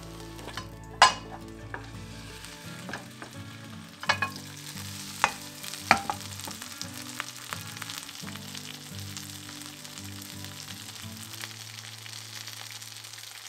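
Food frying in an oiled pan, a steady sizzle, with a few sharp clinks of a utensil against the pan: the loudest about a second in, others between four and six seconds in.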